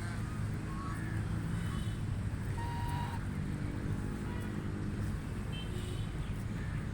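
Canada geese giving several short, scattered honks over a steady low rumble.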